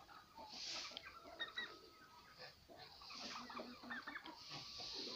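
Chickens and turkeys clucking and calling faintly, many short notes overlapping.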